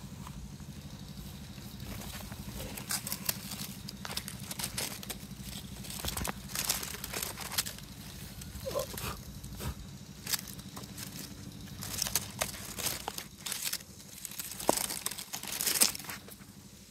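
Raspberry leaves and canes rustling and crackling in irregular strokes as hands push through the bushes. Underneath is a steady low motor hum that weakens about halfway through.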